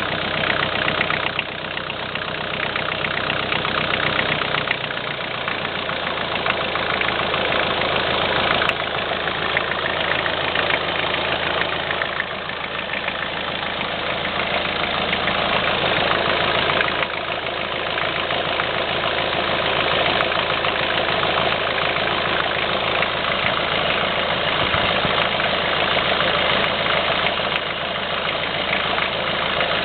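Dodge Power Ram's 2.5-litre pushrod engine idling steadily with a rhythmic knock from a worn hydraulic lifter, which has opened up the valve clearance.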